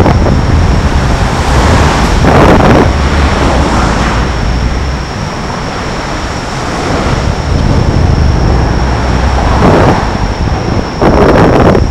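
Road traffic passing close by on the bridge deck, with wind buffeting the microphone: a heavy low rumble, with vehicles swelling past about two seconds in and again near the end. A faint steady high whine runs underneath.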